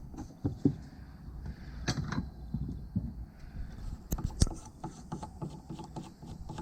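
Irregular clicks, clinks and knocks of metal quad-bike rear brake parts being handled and fitted together, with a couple of sharper knocks.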